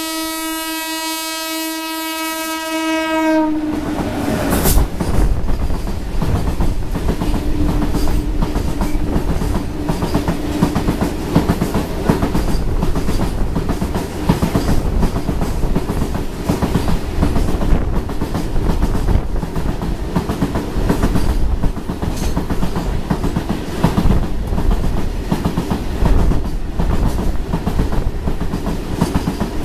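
A train horn sounds one long, steady blast that cuts off about three and a half seconds in. About a second later the WAG-7 electric locomotive passes close by on the adjacent track with a sudden surge of noise, and its long rake of BCNAHL covered wagons follows, wheels clattering steadily over the rail joints.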